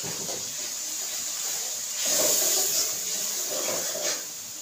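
Spiced tomato, ginger-garlic and chilli masala sizzling in a steel pan on a gas flame as it is fried and stirred, a steady hiss that grows louder about two seconds in.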